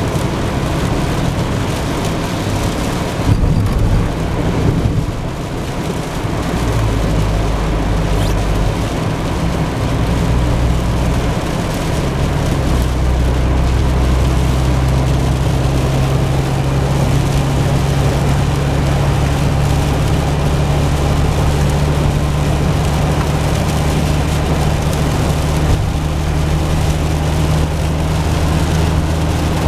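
Car cabin noise at highway speed in the rain: a steady low road and engine drone under the hiss of rain and tyre spray off the wet road, with a few brief louder bumps about three to five seconds in.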